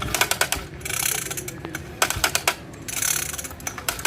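Recoil pull starter of a 49cc pocket bike engine being pulled by hand several times: the starter rattles and clicks in quick runs, with a rasp of the rope between pulls. The starter is faulty; the bike won't start.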